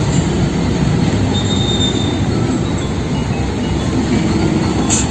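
Concrete mixer truck on a road: loud, steady rumble of its heavy diesel engine and tyres, with a faint high squeal about two seconds in.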